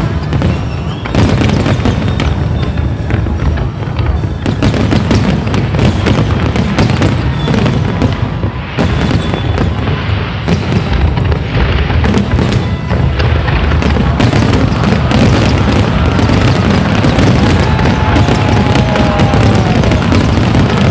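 Aerial fireworks going off continuously in a dense barrage, with deep booms and crackling bursts overlapping one another without a pause.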